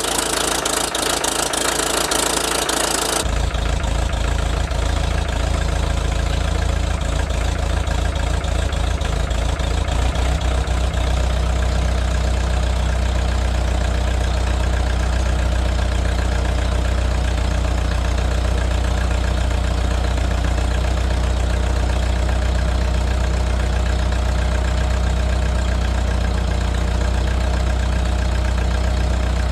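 1952 Farmall Super M's carbureted four-cylinder engine running on full choke just after a hard cold start. It fires unevenly and skips for about the first ten seconds, then settles into a steady idle.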